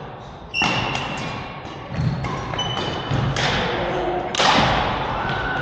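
Badminton rally in an echoing hall: sharp racket hits on the shuttlecock roughly every second or so, with shoe squeaks on the court between them.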